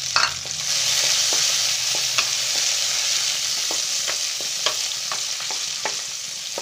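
Cashews and raisins sizzling in hot ghee in a kadai: a steady frying hiss dotted with small scattered clicks, with a wooden spatula stirring them near the end.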